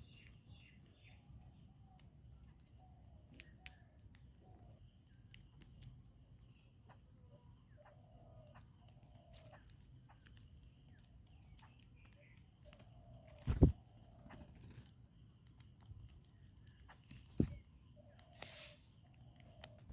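Birds calling with short, repeated notes over a steady high-pitched insect trill. Two loud sharp knocks come about two-thirds of the way in and again near the end.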